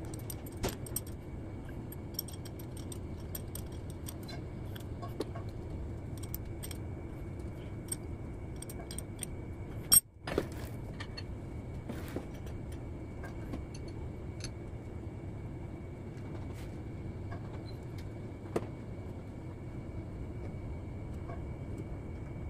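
Loose steel bolts and hand tools clinking and tapping against one another as they are handled, in scattered small ticks over a steady workshop hum. One sharp, much louder metal knock comes about ten seconds in, and a smaller one a little past eighteen seconds.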